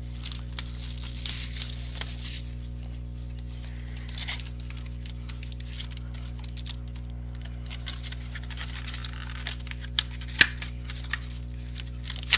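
Packaging of a sealed box of basketball trading cards being torn open and crinkled, in irregular bursts, with a few sharp clicks near the end, over a steady low hum.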